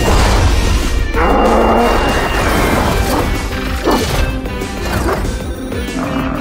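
Cartoon sound effects for a bull-bulldozer character's power-up sequence: crash and impact effects over background music.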